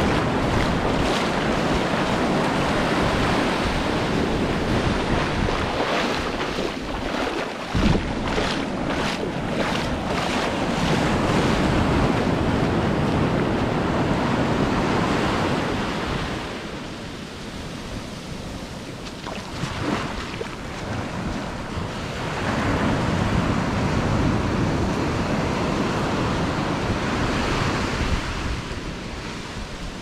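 Sea waves breaking and washing up a sandy beach, with wind buffeting the microphone. The surf swells and recedes, falling quieter for a few seconds past the middle before building again.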